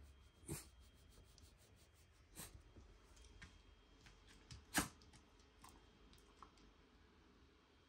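A Shiba Inu moving on a wooden floor: its body and paws rub and knock on the boards a few times as it rolls over and gets up, the loudest knock about five seconds in. This is followed by a few light clicks of its claws as it starts to walk.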